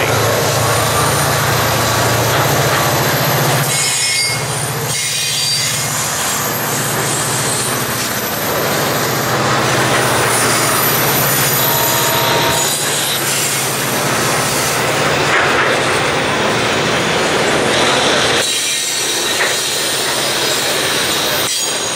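Double-stack intermodal container well cars rolling past at speed: the steady loud noise of steel wheels on the rails, with a few short, high wheel squeals.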